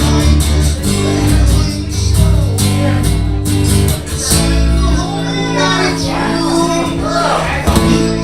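Acoustic guitar music played live, with a voice singing over sustained chords and a strong bass line.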